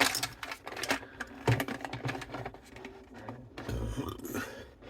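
Irregular light clicks, taps and rustles of small objects being handled close to the microphone.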